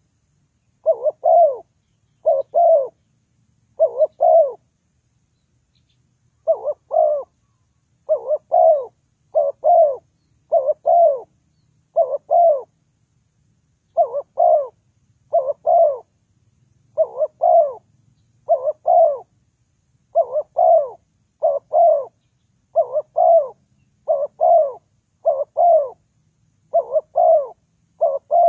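Spotted dove cooing: short coos repeated over and over, about once a second, with a couple of brief pauses.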